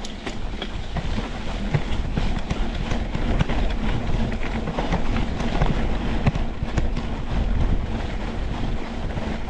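Mountain bike rolling fast over a rough dirt trail: dense irregular rattling and clicking from tyres, chain and frame over stones, with low wind rumble on the microphone.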